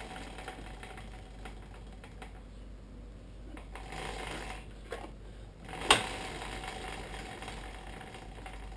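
1990 Yamaha TW200's rear wheel spinning freely on a stand, a faint fast light ticking with no rubbing from the rear drum brake: the brake is adjusted so it does not drag. The sound dips briefly and a sharp click comes about six seconds in.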